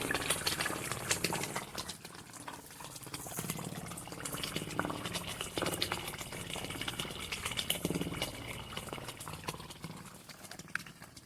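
Spring water pouring down inside a narrow mini artesian well shaft, splashing and trickling irregularly: the sound of a spring flowing strongly into the well.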